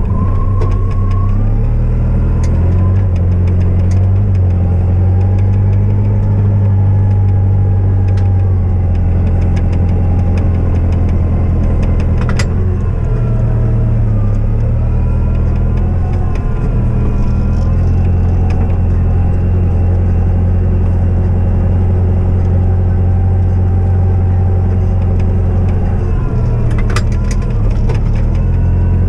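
Diesel engine of a snow-clearing vehicle running steadily under load, its pitch shifting a little now and then, with two sharp knocks, one about halfway through and one near the end.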